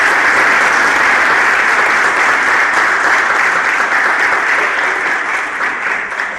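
A room full of students applauding, dense steady clapping that begins to die away near the end.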